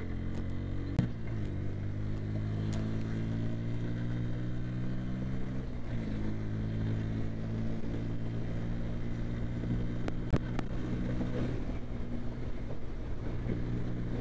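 Bajaj Pulsar N160's single-cylinder engine accelerating hard. Its pitch climbs, drops at an upshift about a second in and again about six seconds in, then runs steady at highway speed.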